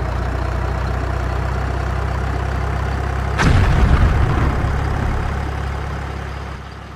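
An armoured vehicle's engine runs with a steady low drone. About three and a half seconds in, a tank's main gun fires: a sudden loud boom whose rumble slowly fades away.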